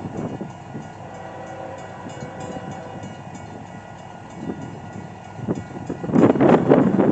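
A train running past with a steady rumble, overlaid by gusts of wind buffeting the microphone that grow loud near the end.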